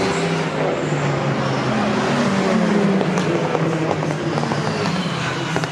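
A Honda Civic Type R TCR touring race car's turbocharged engine running hard at speed as it passes and pulls away into the corner, with a couple of short sharp cracks partway through and near the end.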